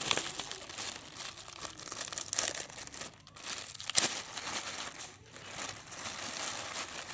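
Packaging crinkling and tearing as a parcel is unwrapped by hand, with a sharp click about four seconds in.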